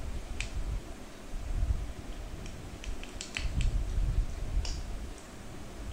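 Medu vadai (urad dal fritters) frying in hot oil in a pan, with scattered crackles and pops over a low rumble.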